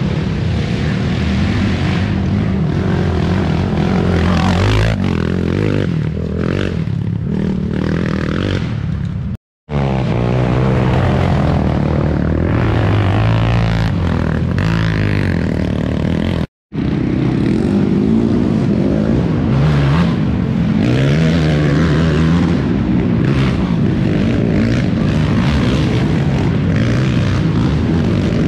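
Racing quad (ATV) engines running and revving, a steady loud drone whose pitch rises and falls with the throttle. The sound cuts out for an instant twice where clips are spliced.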